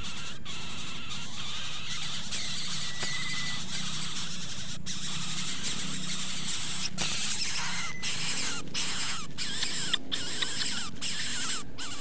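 Coucal chicks begging in the nest: many short, high squealing calls, coming thicker in the second half, over a constant high hiss.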